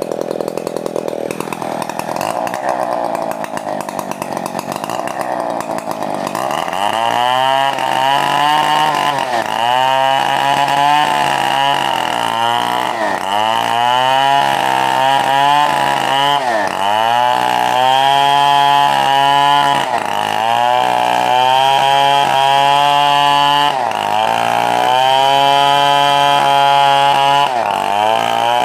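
Stihl two-stroke chainsaw running hard while cutting coconut palm trunk wood. For the first few seconds the engine note is uneven. It then settles into a pattern in which the pitch sags and climbs back every second or two as the chain bites into the wood and frees.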